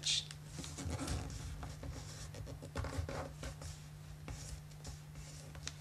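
Sheet of origami paper rustling, with soft scrapes as fingers slide along an edge and press a fold flat, over a steady low hum.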